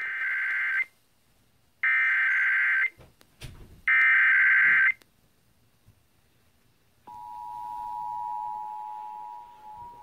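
Emergency Alert System Required Monthly Test on FM radio, heard through a small portable radio's speaker. Three SAME header data bursts, a harsh digital warble about a second each and evenly spaced, are followed about seven seconds in by the steady two-tone EAS attention signal.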